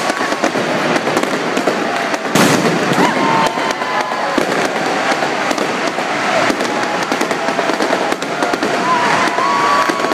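Fireworks and firecrackers going off all around in a dense, continuous crackle of pops and bangs, with one heavier bang about two seconds in.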